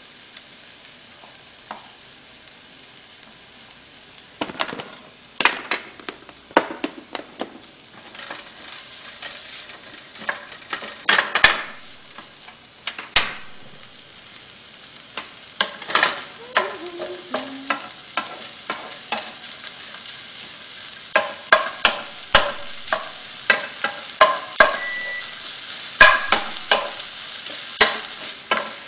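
Chopped vegetables sizzling as they are stir-fried in a frying pan, with a steady hiss and many sharp clacks and scrapes of a wooden spatula against the pan. The clacks come thicker in the second half.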